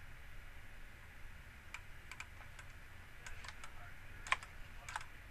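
Scattered clicks from a computer mouse and keyboard, about ten in all and irregularly spaced, the loudest a little past four seconds in, over a faint steady hum.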